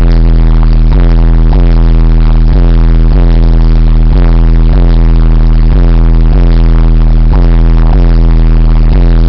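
Car subwoofer system playing bass-heavy music at extreme volume, the deep bass notes pulsing a little faster than once a second and overloading the recording into distortion.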